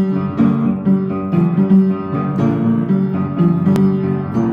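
Upright piano playing a rhythmic pattern of repeated low notes under chords, with one short click about three-quarters of the way through.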